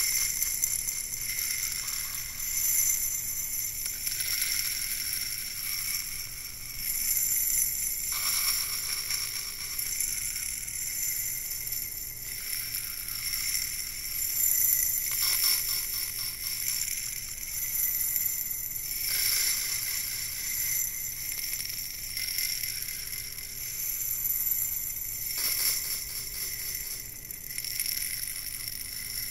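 Loose small contents trickling and rattling inside a handheld container as it is tilted back and forth, the flow swelling every few seconds with each turn, over a steady thin high ringing.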